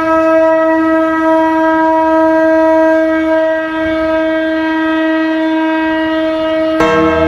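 Conch shell (shankha) blown in one long, loud, steady note. Near the end, a second, lower tone cuts in alongside it.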